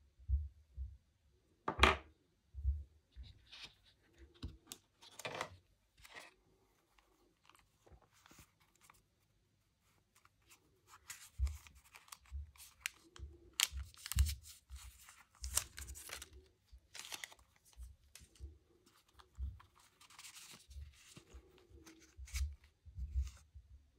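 Gloved hands handling small packaging parts: a few sharp clicks and scrapes as a small plastic USB-C adapter is turned over, then, after a quiet moment, a run of rustling, scraping and soft knocks as a small cardboard sleeve is handled and a paper booklet slides out of it.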